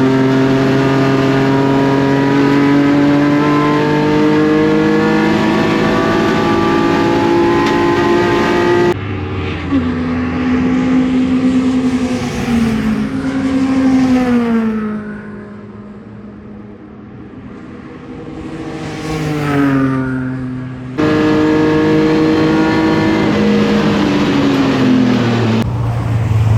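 Racing engine at high revs, heard from on board: the BMW S54 inline-six in an E36 race car, its pitch climbing slowly as it pulls through a gear. About nine seconds in, the sound switches to race cars passing by, each with a falling pitch, and near the end it switches back to the loud engine held at high revs.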